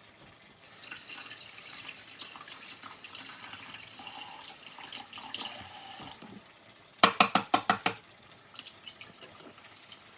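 A kitchen tap running into a sink for several seconds, followed a little later by a quick run of about six sharp knocks.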